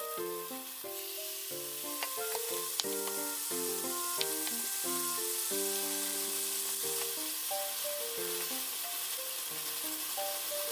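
Chicken breast pieces sizzling in a frying pan with chili sauce and chopped onion while being stirred, with a couple of sharp clicks. Light melodic background music plays throughout.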